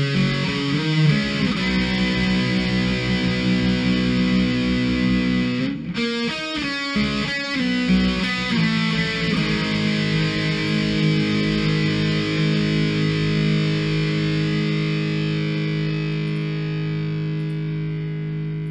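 Background music led by a distorted electric guitar: sustained chords, a quicker run of notes about six seconds in, then one long held chord that cuts off abruptly at the end.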